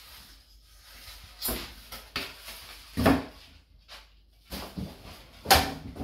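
Polystyrene foam packing pieces being pulled off a boxed appliance and set down on a cardboard box: a series of separate knocks, rubs and rustles, the loudest near the end.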